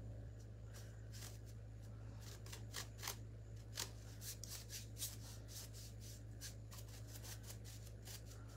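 Faint, quick, irregular scratching of a bristle chip brush being dry-brushed across a metal lantern's scrollwork, a few strokes louder than the rest.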